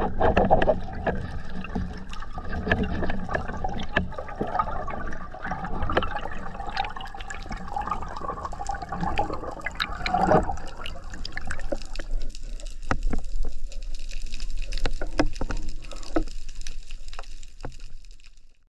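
Underwater sound picked up by a diver's camera: a steady wash of water noise with many short, sharp clicks scattered through it, thinning out after about twelve seconds and fading away at the very end.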